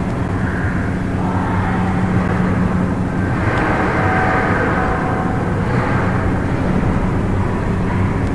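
Steady low machine hum with an even rushing noise, and a faint click about three and a half seconds in.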